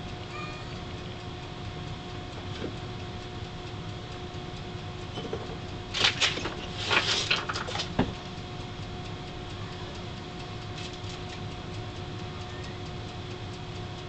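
A kitten scrambling about on top of a wooden bookcase: about two seconds of scratching and rustling starting about six seconds in, ending in a sharp knock. A steady electrical hum runs underneath.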